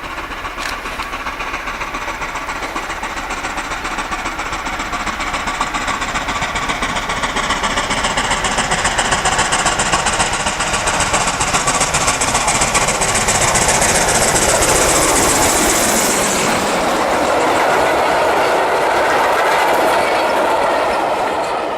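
FS Class 685 steam locomotive hauling a train of carriages past at speed, growing louder as it approaches, with a fast run of exhaust beats and a high hiss. About three quarters through the hiss cuts off suddenly, leaving the carriages rolling by over the rails.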